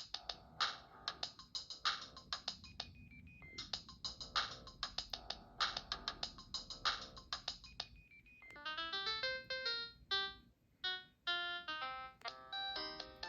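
Preloaded ringtones playing on a Samsung SPH-A600 mobile phone. First a rhythmic electronic tune with sharp, evenly repeated hits; then, after about eight seconds, a brief pause and a different ringtone, a quick stepping synth melody.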